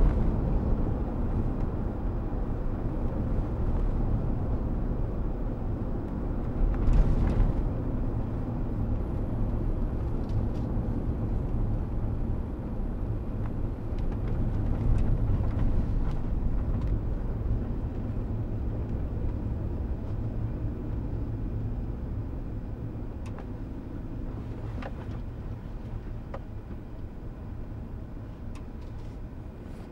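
Road and engine noise of a Chevrolet Suburban heard from inside the cabin while driving on a rough highway surface, dying away gradually as it slows to a stop. A brief louder jolt about seven seconds in.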